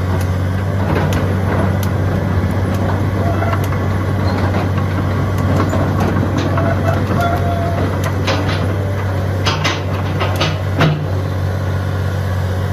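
Caterpillar 330DL excavator's diesel engine running steadily under work, with scattered sharp knocks and clanks from the machine, most of them between about eight and eleven seconds in.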